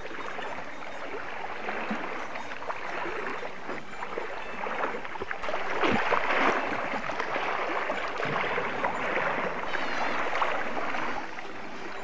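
Water splashing and sloshing around a cow swimming close alongside, loudest about halfway through as its head pushes right up to the camera.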